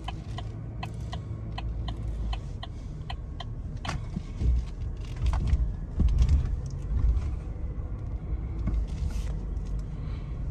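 Inside a slowly moving car: a steady low rumble of engine and tyres, with the turn-signal indicator ticking about three times a second for the first four seconds or so. A few heavier low thumps come about four and a half and six seconds in.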